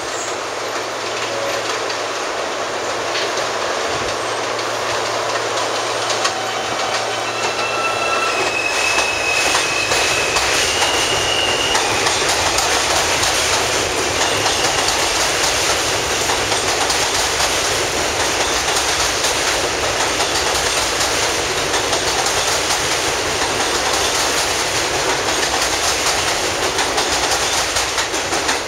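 New York City subway train running on an elevated steel line: a steady rumble and clatter of wheels over the rails, growing louder about eight seconds in, with a few brief high whining tones between about eight and fifteen seconds.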